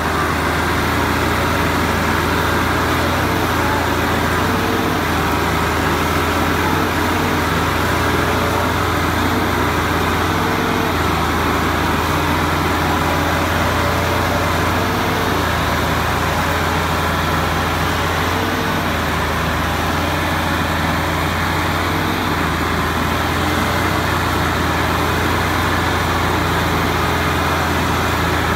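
Diesel engines of two Massey Ferguson tractors running steadily at full load, pulling against each other while chained back to back in a tractor tug-of-war.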